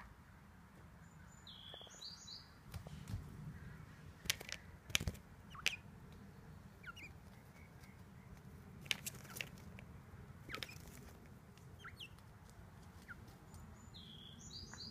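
Quail giving short, high chirping calls, once about a second and a half in and again at the end, with several sharp taps in between, the loudest about four to five seconds in.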